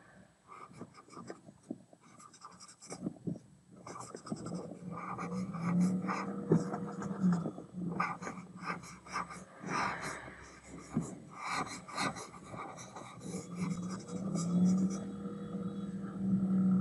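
An eraser rubbed back and forth over pencil lines on paper, in quick, irregular scrubbing strokes that lighten the sketch.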